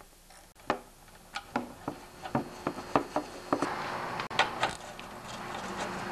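Socket wrench on an extension working the bolt that holds a lawnmower's fuel tank and carburetor to the engine. It gives a string of irregular sharp metal clicks and taps, with a rising scraping hiss over the second half.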